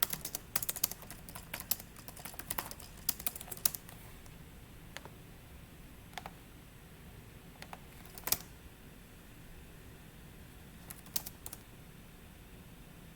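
Typing on a computer keyboard: a quick run of keystrokes for about four seconds, then a few scattered single key presses.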